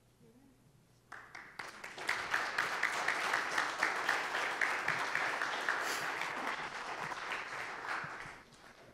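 A church congregation applauding. The applause starts about a second in, quickly swells, holds, and dies away near the end.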